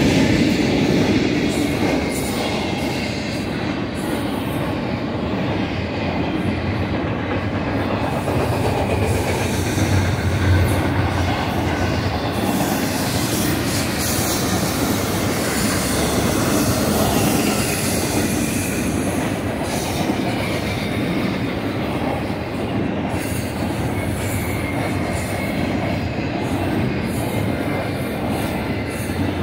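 Double-stack intermodal freight cars of a BNSF train rolling past, steel wheels running steadily over the rails.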